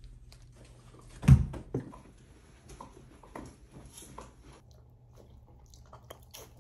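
A dull thump about a second in, a smaller one just after, then scattered light clicks and taps of handling.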